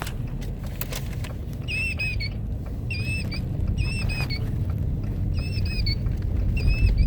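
Wild Republic Audubon killdeer plush toy playing its recorded killdeer call through its small built-in speaker: five short, high-pitched calls about a second apart, starting a couple of seconds in. Handling clicks and a low rumble sit underneath.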